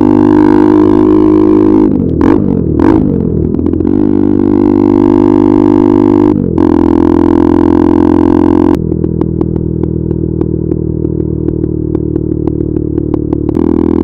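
KTM RC 390's single-cylinder engine through an Akrapovič exhaust, pulling at cruising speed; the note wavers about two seconds in and breaks briefly around six seconds in. Then the throttle closes: the engine note drops suddenly and a rapid string of small pops comes from the exhaust as the bike slows, until the throttle opens again near the end.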